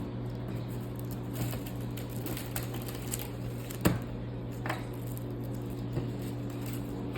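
Microwave oven running with a steady low hum. A sharp click comes just under four seconds in, with a few fainter ticks around it.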